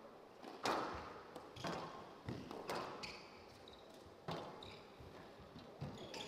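Squash rally: the ball is struck by rackets and hits the walls of a glass court in about six sharp, echoing knocks, with short high squeaks of court shoes on the floor.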